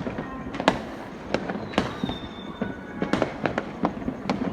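Aerial fireworks bursting overhead: sharp bangs a few times a second over steady crackling, with a quicker run of bangs in the last second and a half.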